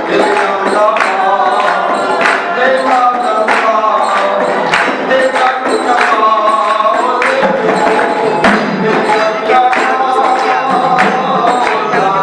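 Hindu devotional bhajan to Ganga sung live, a lead voice with others joining in. A barrel drum and hand-clapping keep a steady beat.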